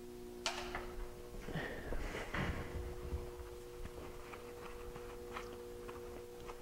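Quiet room tone with a steady faint hum, broken by a few soft clicks and rustles, the sharpest about half a second in.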